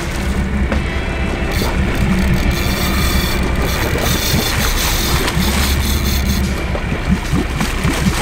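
Wind buffeting the microphone over the steady low drone of a boat engine idling.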